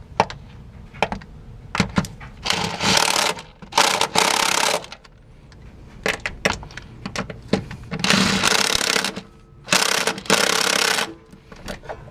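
Power impact tool running in four short bursts of about a second each, driving the rear shock's 12 mm bolts and nuts back in, with metal clicks from handling between bursts.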